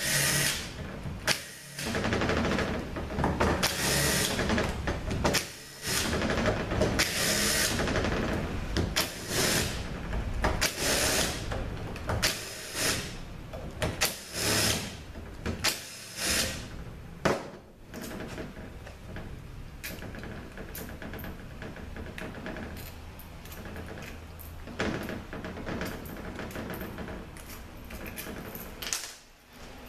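Cordless drill/driver with a socket spinning bolts out of a 66RFE transmission oil pump in about ten short runs of a second or so each. For the last dozen seconds there are only small clicks and clinks of loose bolts and metal pump parts being handled.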